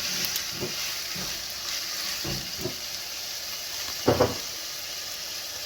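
Minced beef, potato and onion sizzling as they fry in a pan, with a steady hiss. A utensil stirs and knocks against the pan now and then, most loudly about four seconds in.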